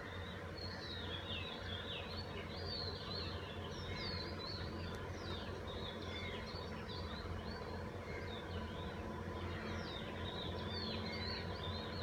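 Dawn chorus of many small birds chirping and twittering, with dense overlapping calls throughout. A steady low hum runs underneath.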